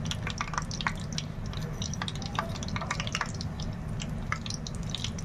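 Breadcrumb-coated potato patties shallow-frying in hot oil in a pan: a steady sizzle with frequent sharp crackles and pops, over a low steady hum.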